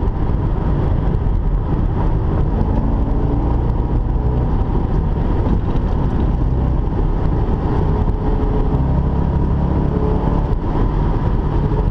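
2005 Corvette's LS2 V8 running steadily at highway speed, heard from inside the cabin, with road and wind noise.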